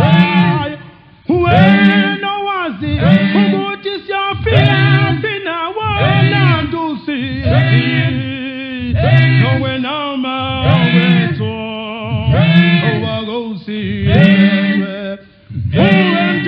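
Zulu male a cappella choir singing in harmony with a deep bass part, in short repeated phrases with brief breaks about a second in and near the end.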